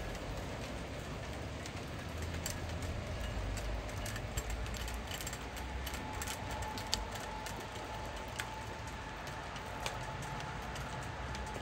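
Rain falling, with scattered drops ticking sharply on a hard surface over a steady hiss and a low rumble.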